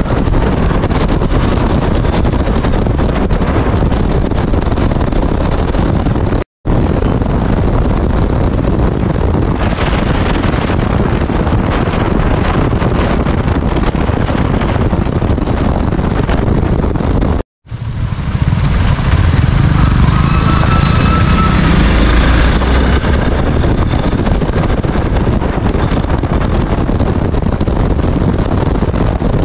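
Single-cylinder Hero Xpulse motorcycle cruising on a highway: wind rushing over the microphone on top of the engine running and tyre noise, dropping out for an instant twice and a little louder after the second break.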